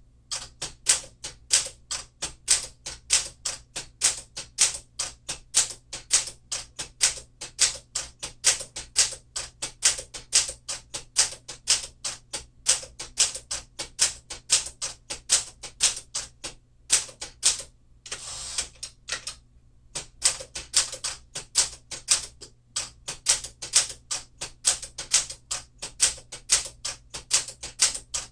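Keys of a 1952 Smith-Corona Clipper manual typewriter struck in a steady, even run of about three to four keystrokes a second, each typebar hitting the platen with a sharp clack. About two-thirds of the way through, the typing pauses for a short rasping sweep as the carriage is returned to start a new line.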